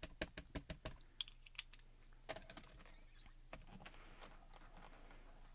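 Light, quick tapping of a small ink pad against a clear photopolymer stamp, about four or five taps a second at the start, then a few scattered clicks that thin out to quiet room tone.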